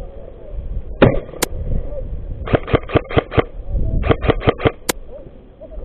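Airsoft gun firing two quick strings of about five shots each, at roughly six or seven shots a second, with a couple of single sharp cracks before and after.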